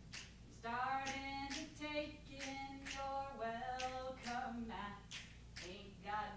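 A woman singing unaccompanied, holding and sliding between sustained notes, with sharp clicks keeping time about every half second.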